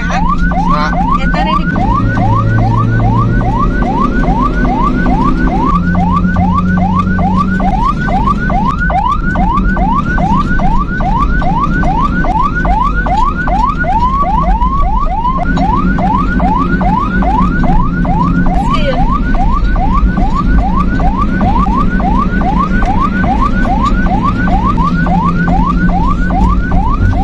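Ambulance siren on a fast yelp: quick rising sweeps repeating a few times a second without a break, over the vehicle's engine and road noise.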